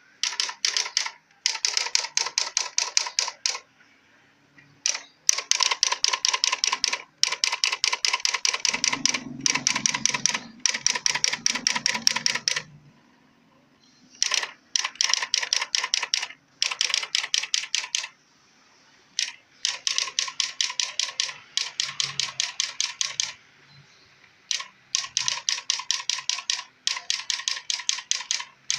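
Samsung SQ-1200 electronic typewriter typing: runs of rapid, even key strikes, about ten a second, each run lasting a second or two with short pauses between. A low hum sounds under the typing about a third of the way in.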